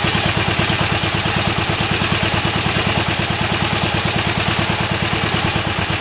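Honda air-cooled parallel-twin motorcycle engine idling with an even beat, running on a newly fitted ignition coil: a sign the new coil works.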